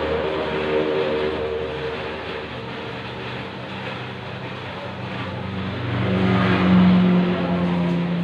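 A motor running with a steady hum that swells louder about six seconds in.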